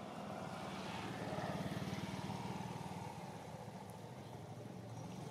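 A motor engine running with a low, rapidly pulsing hum that grows louder about a second in and eases off gradually.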